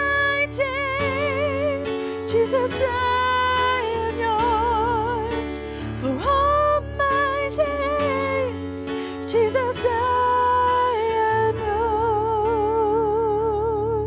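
Two female voices singing a worship song over instrumental accompaniment, with long held notes that waver.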